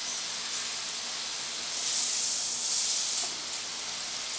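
Potato fries deep-frying in hot oil in an electric deep fryer, a steady sizzling hiss of bubbling oil. The hiss swells louder and brighter for about a second and a half in the middle.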